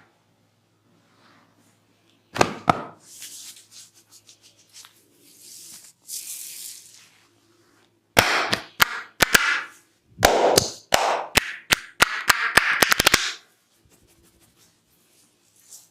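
Cracking and snapping from a barber's massage: two sharp cracks, a few seconds of soft rubbing, then a quick run of about fifteen sharp cracks that crowd together before stopping.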